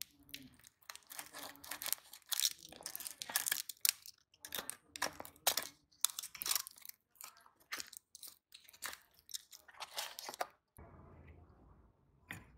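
Utility knife blade slitting and scraping through plastic wrap and packing tape on a small cardboard box, a run of irregular sharp tearing and crinkling strokes that stops abruptly near the end.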